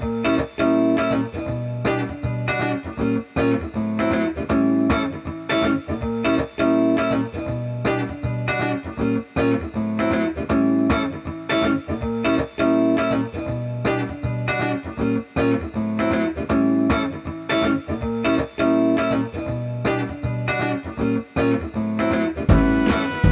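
Background music led by a plucked guitar with a steady rhythm.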